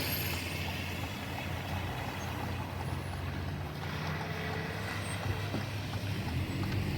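Car running on the road, heard from inside the cabin as a steady low engine and road drone.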